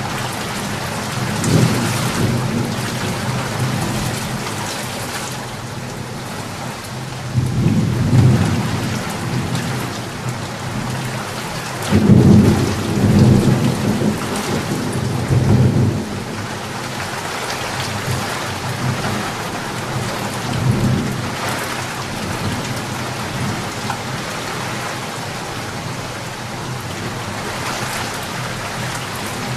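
Steady rain with rolling thunder: several low rumbles come and go, the longest and loudest about halfway through.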